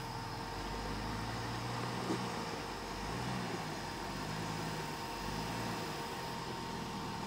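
Off-road 4x4 SUV engine running at low revs, rising and falling in pitch as the truck crawls over rocks on a steep trail.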